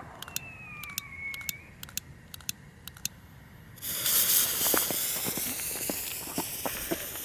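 Firecrackers popping sporadically at a distance, with a faint whistle gliding down. About four seconds in, a firework lights up close by with a loud steady hiss and crackling through it.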